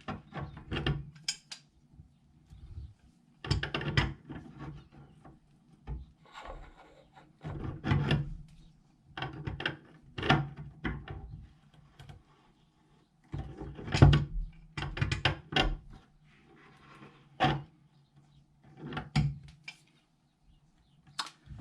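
Irregular clicks and scrapes of metal faucet parts and hand tools being worked, in short bursts every second or two, as the nut on a Delta two-handle faucet valve is tightened with adjustable pliers and the stem assembly is handled.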